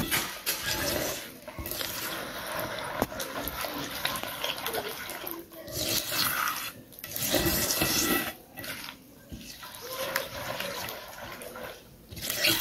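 A hand stirring and squelching through a runny mixture of oil, sugar and almonds in a glazed clay bowl. The strokes are uneven and broken by several short pauses.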